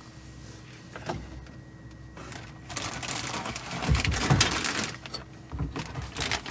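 Model kit parts and their plastic packaging being handled: a single click, then from about two seconds in a dense run of rustling, crinkling and small clicks.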